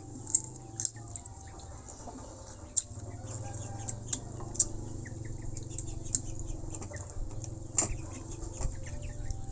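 Sharp cracks, snaps and clicks of a snack being broken apart and peeled by hand and chewed, scattered irregularly, with the loudest snap near the end, over a steady low hum.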